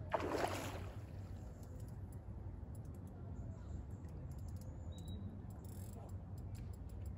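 A short splash in the lake water close to the bank, about a quarter second in, then faint light clicks over a low steady rumble.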